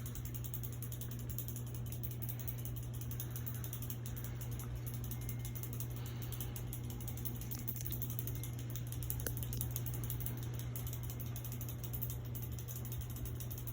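Hunter Savoy ceiling fan running in reverse: a steady motor hum with a rapid, even clicking throughout.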